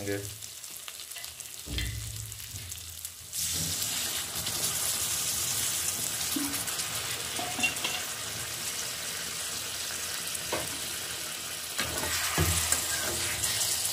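Water poured into a hot kadhai of spiced eggplant pieces sets off a sudden loud sizzle about three seconds in, which carries on steadily as the masala cooks in the water. A wooden spatula stirs and knocks against the pan near the end.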